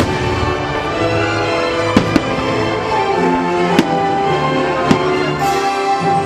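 Orchestral show music playing over loudspeakers, with fireworks bursting in sharp cracks four times, two of them in quick succession about two seconds in.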